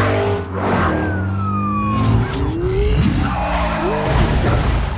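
Movie car-chase sound mix: car engines revving and a police siren wailing, with music underneath.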